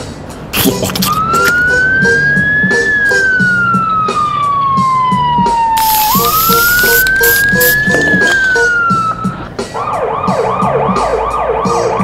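Siren wailing, its pitch rising and falling slowly twice, then switching to a fast yelp near the end, over background music with a steady beat. A short burst of hiss comes about six seconds in.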